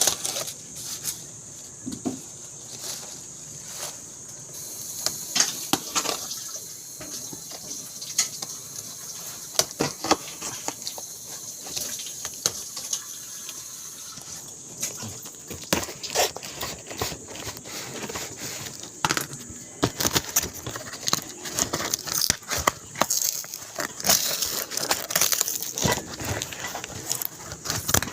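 Irregular rustles, taps and clicks of a new grinder and its packaging being handled and unpacked, with no motor running.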